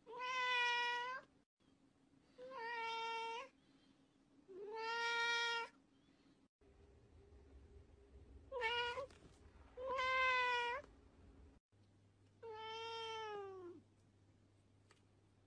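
Domestic cats meowing: six drawn-out meows in turn, each lasting up to about a second, with the last one sliding down in pitch.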